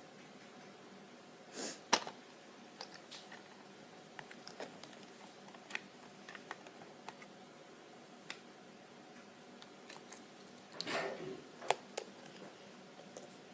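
Objects being handled in a small room: scattered light clicks and taps, with two louder rustles each ending in a sharp click, about two seconds in and again near eleven seconds.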